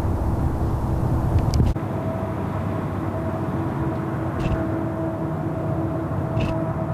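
Outdoor background noise: wind rumbling on the microphone, which drops away abruptly a little under two seconds in, over a steady low hum and a few faint short ticks.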